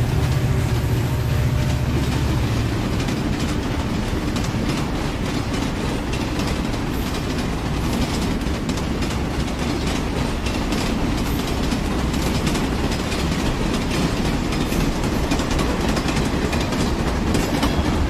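A steady, heavy rolling rumble with a fast clattering rattle, the sound of a large vehicle on the move; the deep low rumble is strongest at first and eases within the first few seconds.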